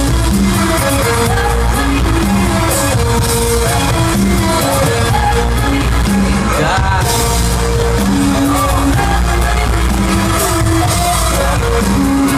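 Loud live pop music over an arena sound system: a heavy, steady bass with held synth notes stepping up and down under a singing voice.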